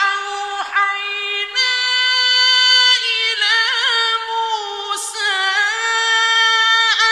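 A man's melodic Quran recitation in a high voice: long held notes that waver into a quavering ornament about halfway through.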